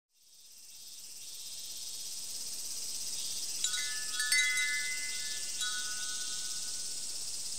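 Japanese glass wind chime (fūrin) tinkling: a few clear ringing strikes about halfway through, over a steady high hiss that fades in at the start.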